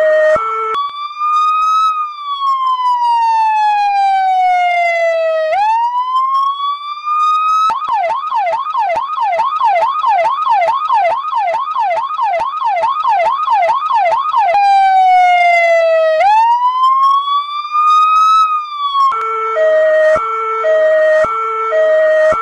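Fire engine electronic siren cycling through its modes. A brief two-tone hi-lo gives way to a slow wail that rises and falls twice, then a fast yelp at about three sweeps a second. After about seven seconds it returns to the slow wail, and the two-tone hi-lo comes back near the end.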